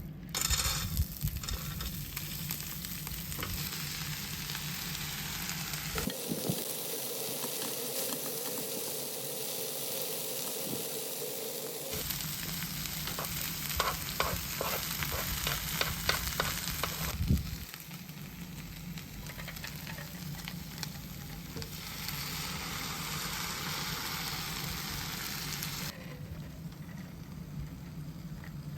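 Monjayaki sizzling on a hot plate. A spatula scrapes and chops at it in quick strokes, about four a second, in the middle stretch. The sizzle changes abruptly several times, as between separate takes.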